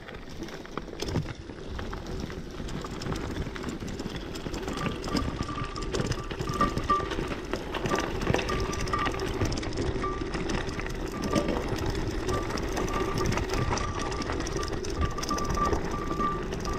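Mountain bike rolling down a gravel track: tyres crunching and rattling over loose gravel, with a rapid mechanical buzz typical of the rear hub's freewheel while coasting. The noise grows louder over the first few seconds, and a thin steady whine comes and goes from about five seconds in.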